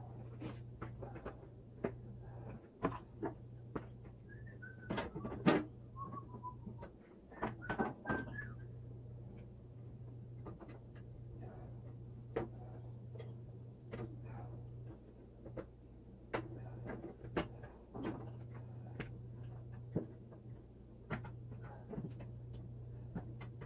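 Scattered light clicks and knocks of objects being handled, over a steady low hum; a few brief squeaky chirps sound about four to eight seconds in.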